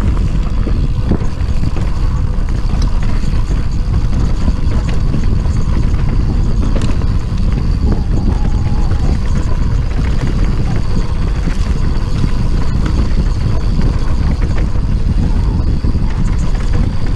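Mountain bike riding along dirt singletrack: steady, loud low rumble of wind buffeting the bike-mounted camera microphone mixed with tyre noise on the dirt, with occasional small clicks and rattles from the bike.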